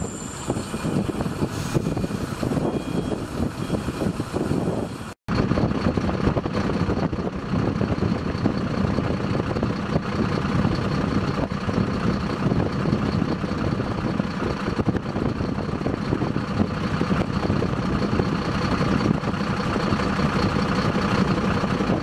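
Tow truck's diesel engine running steadily at idle, with a faint steady high whine over it. The sound drops out for an instant about five seconds in.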